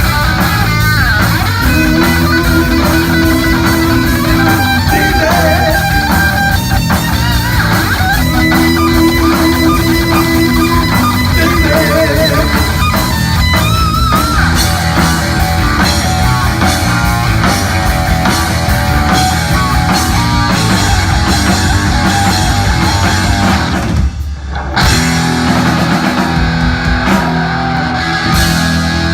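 Heavy metal band playing live at full volume, electric guitar to the fore over bass and drum kit, with no vocals. About three-quarters of the way through the band briefly stops, then crashes back in.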